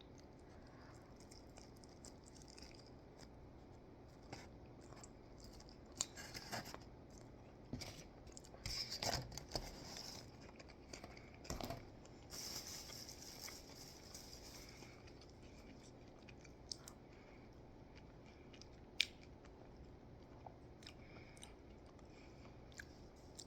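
Faint sounds of a person biting into and chewing a bacon cheeseburger, with scattered clicks and rustles. The noise is busiest through the middle, and there is one sharp click later on.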